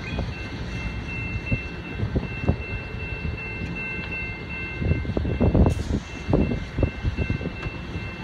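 A GO Transit commuter train approaching along the line: a low rumble that swells around the middle, with a steady high tone held over it.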